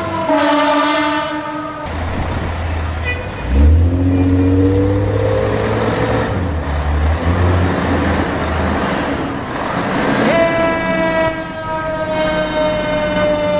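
Fire trucks' sirens and air horns over a diesel engine, from two trucks in turn. A rising wail comes a few seconds in, and a long horn-like tone starts abruptly near the end and sags slightly in pitch.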